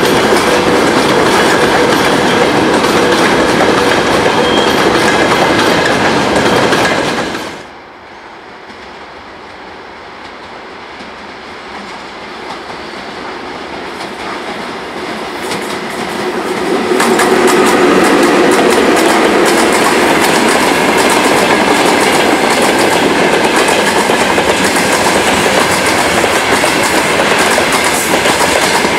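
Freight wagons rolling past close, their wheels clacking over the rail joints. About seven seconds in the sound cuts off. Another freight train hauled by a VL80-series electric locomotive then approaches, growing louder, and from about seventeen seconds on its wagons are rolling past close again.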